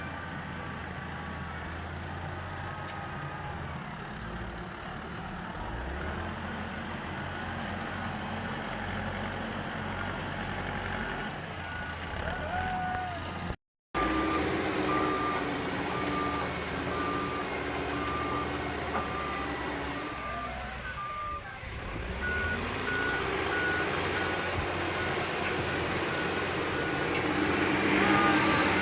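Heavy diesel machinery running steadily on a work site. About halfway through, a vehicle's reversing alarm starts beeping at a steady pace, about once a second, and a second, slightly higher reversing beeper joins in later.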